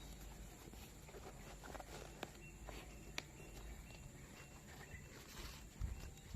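Quiet handling noises: scattered light taps, clicks and rustles, as new training shoes and their packaging are handled, with a low thump near the end over a faint steady hum.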